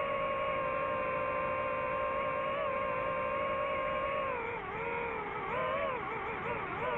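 DJI FPV drone's motors and propellers whining at a steady pitch. From about four seconds in the pitch wavers up and down as the throttle changes.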